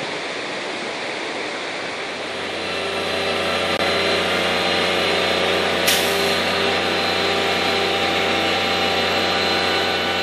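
Truck-mounted crane's engine running steadily, coming in about two and a half seconds in after a stretch of steady hiss, with a single sharp click near the middle.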